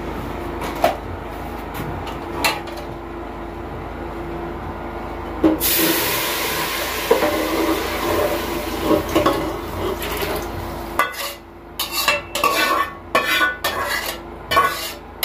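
Boiled meat, stockfish and pomo going into a pot of hot red palm oil and ground ogbono: a loud hiss sets in about five and a half seconds in and lasts about five seconds. After it, a spoon knocks and scrapes repeatedly against the pot.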